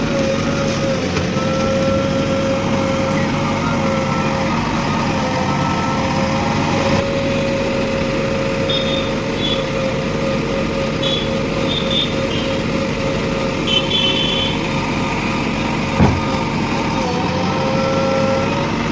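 JCB 3DX Plus backhoe loader's diesel engine running steadily, its pitch sagging briefly under load near the start and again near the end. A few short high beeps sound in the middle, and there is one sharp knock near the end.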